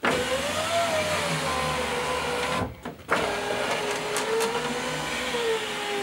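Mazda MX-5 (Eunos Roadster) electric window motor and newly fitted regulator running with the door card off, a steady whine as the glass goes down for about two and a half seconds. After a brief pause it whines again as the glass comes back up, sagging slightly in pitch near the end. The test shows the replacement regulator working.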